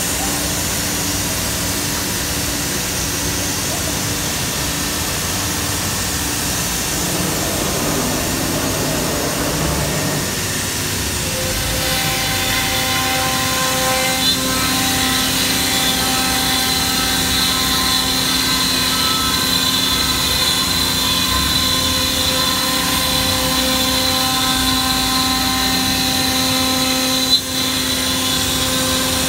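Holz-Her Cosmec Conquest 510 CNC router running with its two Becker vacuum pumps: a steady mechanical drone, joined about a third of the way in by a steady high whine. A single sharp knock near the end.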